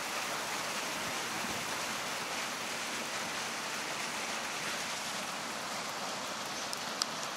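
Iwatani Primus P-153 gas canister stove burner hissing steadily at full flame while it heats a mug of water near the boil. A short click near the end.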